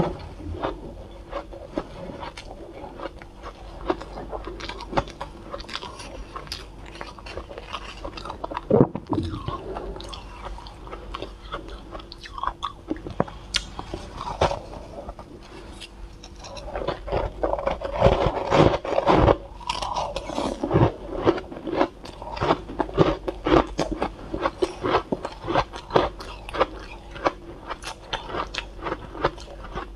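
Close-miked chewing and crunching of mouthfuls of soft shaved ice, a dense run of small irregular crunches that gets louder and busier about halfway through.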